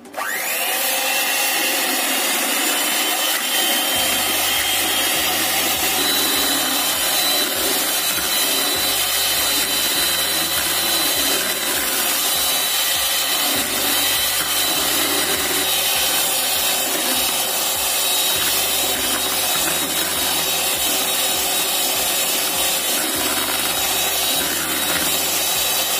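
Electric hand mixer running at high speed, its steel beaters whipping eggs, sugar and water in a plastic bowl until the mix is thick and foamy. The motor whine rises as it starts and winds down at the very end as it is switched off.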